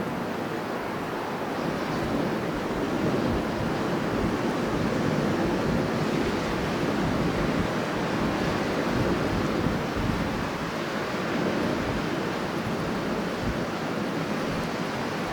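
Strong wind blowing in a dense, steady rush that swells a little and eases again.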